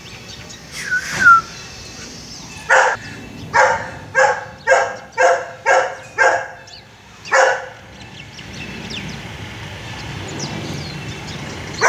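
Golden retriever barking: a quick run of seven barks, then one more after a short pause. A short, high, falling sound comes about a second in, before the barks.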